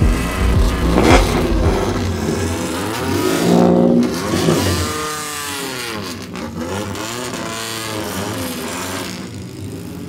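Mazda MX-5 Cup race cars' four-cylinder engines revving as the cars pull away. The loudest engine note comes about three and a half seconds in, then a car moves off with its sound sweeping in pitch and fading toward the end.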